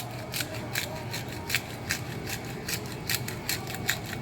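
Hand pepper grinder being twisted to crack peppercorns over meat: a rhythmic crunching click, about two or three turns a second.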